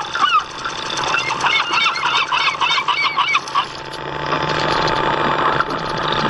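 Geese honking, many arching calls in quick succession for the first three and a half seconds or so. After that a steady motor hum with water noise rises from the RC model boat.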